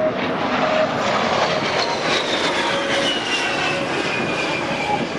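Aircraft flying past with its engines running; a high whine falls steadily in pitch as it goes by.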